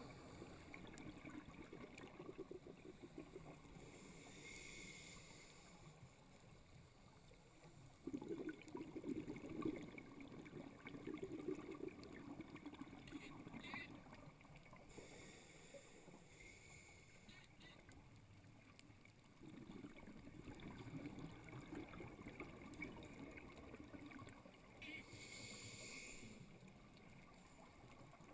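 Faint scuba regulator breathing underwater: slow breaths, each a brief hiss of inhalation followed by several seconds of bubbling exhaust.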